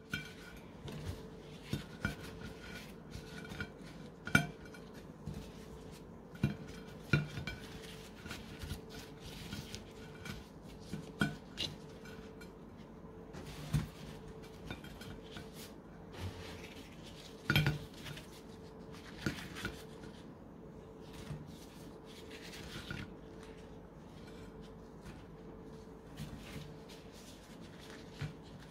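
Irregular light clinks and knocks on a ceramic serving platter as fried qatayef are set down and arranged on it, over a faint steady hum.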